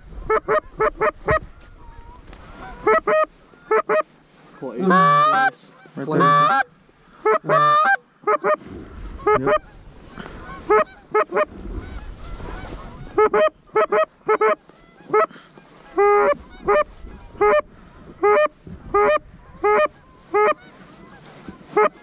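Canada goose honks and clucks in a long series of short calls. It opens with a quick run of clucks, has a few longer, drawn-out honks about a quarter of the way in, and settles into evenly spaced honks about two a second through the second half.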